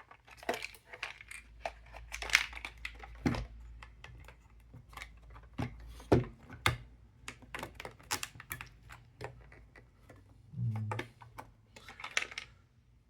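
Puzzle box pieces being handled: a run of small clicks, taps and rattles as parts are pushed, slid and turned, with two sharper knocks about three and six seconds in.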